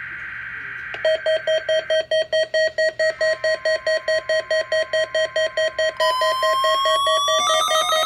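Several NOAA weather radios sounding their alert alarms for the weekly test broadcast. A fast beeping starts about a second in, about four beeps a second. A steady tone joins partway through, and around six seconds in rising, siren-like tones layer on as more radios go off together.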